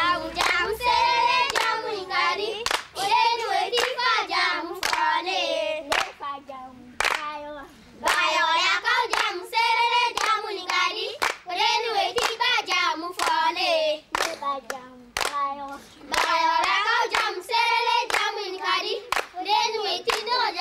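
A group of girls singing a traditional clapping circle song together, with hand claps keeping a steady beat and short breaks between sung phrases.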